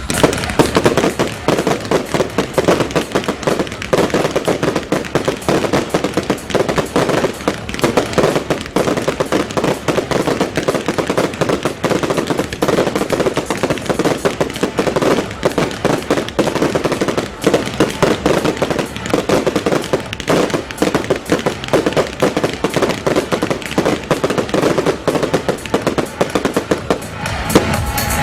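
Fireworks going off in a dense, continuous barrage of rapid crackling reports.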